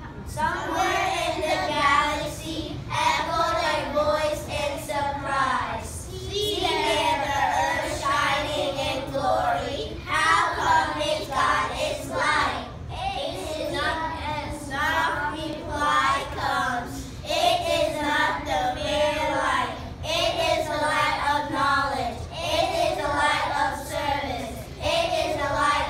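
Young children singing a song together in phrases, with no instruments clearly heard.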